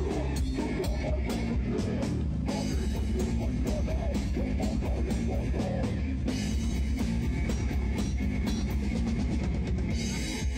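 Live rock band playing loud and steady: a drum kit hitting densely under electric guitar and bass guitar.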